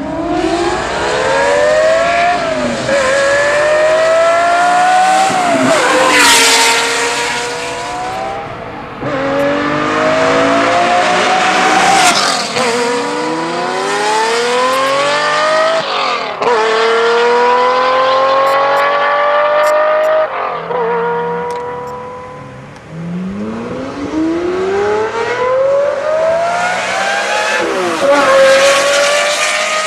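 Lamborghini engine through a Kreissieg valved exhaust, revving hard as the car accelerates through the gears: the pitch climbs and drops back at each gear change, over several runs with a couple of lifts off the throttle in between.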